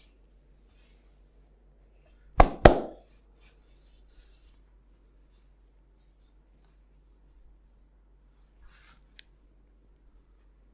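Two sharp hand slaps on the body during a massage, a quarter second apart, loud against faint skin-rubbing sounds.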